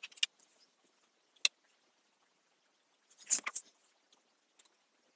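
A few light clicks and taps from handling an oscilloscope probe on a circuit board's chip pins: a couple near the start, one sharp tick about one and a half seconds in, and a short cluster of clicks a little past three seconds.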